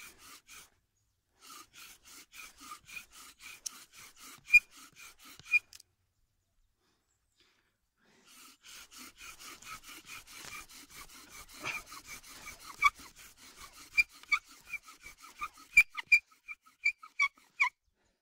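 Bow drill spindle spinning in a wooden fireboard notch, drilling out hot dust for an ember. It makes a fast, rhythmic, squeaky rubbing with each bow stroke, stops for a couple of seconds partway through, then resumes and gets louder with sharp squeaks near the end.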